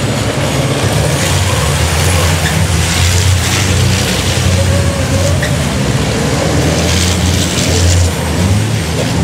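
Racing trucks' turbo-diesel engines running at full race speed as a pack of trucks passes, a dense steady drone of low engine tones under loud rushing hiss.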